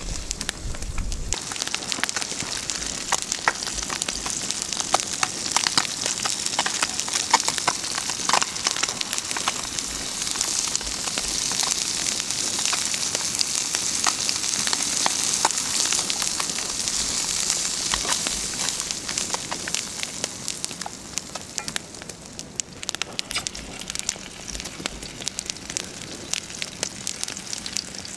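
Wood campfire crackling with sharp pops, and a bass fillet with asparagus sizzling in a cast-iron skillet over the flames. The sizzle swells through the middle and dies down near the end while the crackle goes on.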